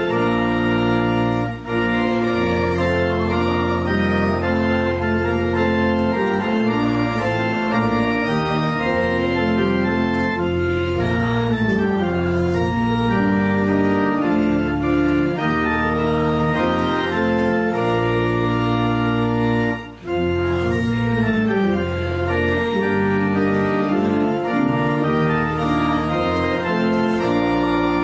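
Organ playing a hymn in held chords that change about once a second, with short breaks between phrases about a second and a half in and again about two-thirds of the way through.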